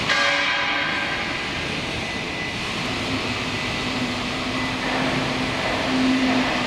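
Steady mechanical running noise with a constant hum. It opens with a brief ringing sound that fades within about a second.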